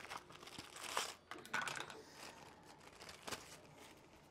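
Clear plastic packaging bag crinkling in irregular bursts as it is opened and its contents pulled out, with a sharp click about three seconds in.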